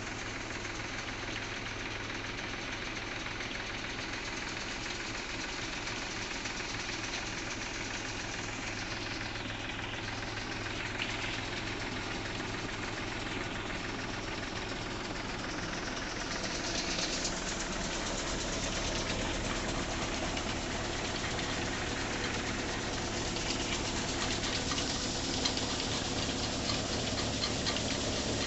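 Tractor engine running steadily as it drives a multi-crop grain cleaner, with the cleaner's elevator, fan and shaking sieves rattling and whirring as grain runs through. The clatter gets a little louder about halfway through.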